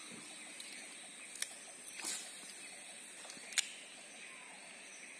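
Steady high-pitched insect drone from the surrounding forest, with a few sharp clicks, the loudest about three and a half seconds in.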